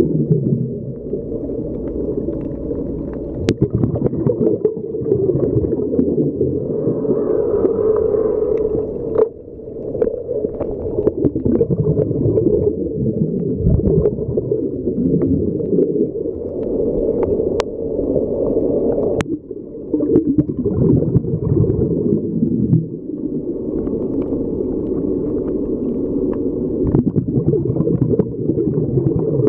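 Muffled underwater noise heard through a submerged camera's housing: a steady, fluctuating low rumble of water, with a few sharp clicks.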